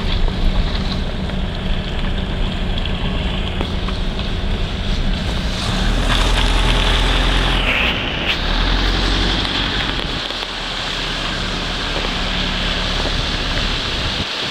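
Car driving slowly, heard from inside: a steady rumble of engine and tyres with wind noise on the microphone. The low rumble eases about ten seconds in.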